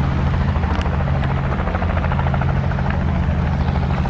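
Helicopter running nearby: a steady, loud drone with a fast rotor beat.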